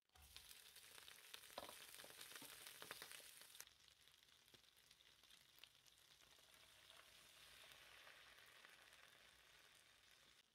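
Shrimp, cherry tomatoes and chives hitting hot olive oil in a nonstick frying pan: a sudden crackling sizzle with many pops. About three and a half seconds in it settles to a softer, steady sizzle as the pan is deglazed with wine.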